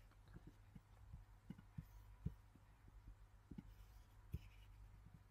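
Near silence: room tone with a steady low hum and a few faint, soft low thumps scattered through it.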